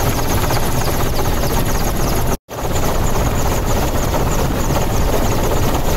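Helicopter engine and rotor noise heard from aboard the aircraft, loud and steady, cutting out for an instant about two and a half seconds in.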